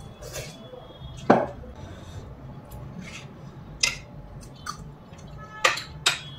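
Metal spoon and fork clinking and scraping against a dinner plate, a few separate clicks. One louder knock comes about a second in.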